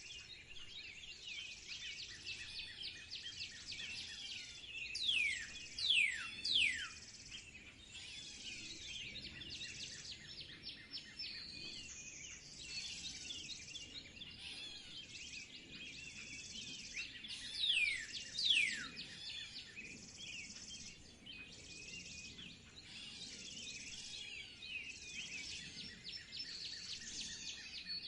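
Many birds chirping and calling together in a busy chorus. A pair of loud whistles falls steeply in pitch about five seconds in, and again at about eighteen seconds.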